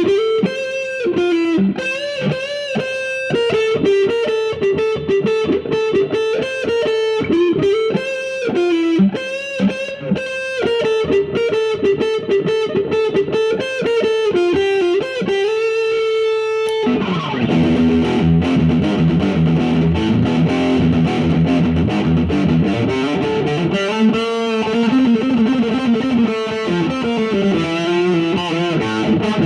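Electric guitar played through a Marshall Valvestate VS30R combo amp. It plays single-note melodic lines, then about two-thirds of the way in switches abruptly to a denser, more distorted tone.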